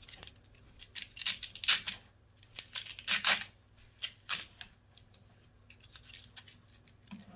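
Short plastic scrapes, rustles and clicks as batteries are handled and fitted into a rowing machine's console, coming in a cluster from about one second in to past the middle.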